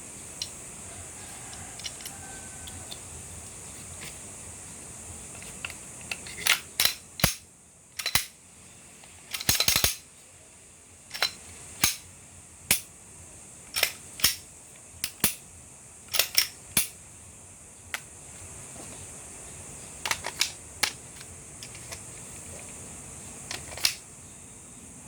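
Irregular sharp clicks and snaps from a Glock 9×19 pistol's parts being handled and fitted together, with a quick rattle of clicks about ten seconds in.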